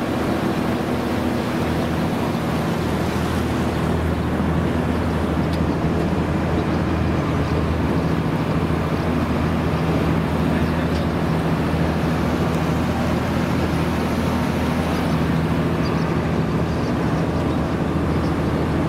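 Engine of a wooden river tour boat running steadily under way, a constant low hum with a broad rush of noise around it.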